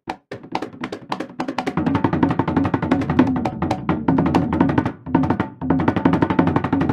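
Percussion music: a fast run of drum strokes with pitched tones, with a brief break about five and a half seconds in.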